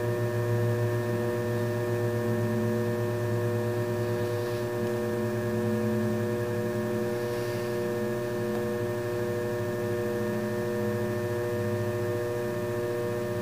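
Electric potter's wheel running with a steady, even hum.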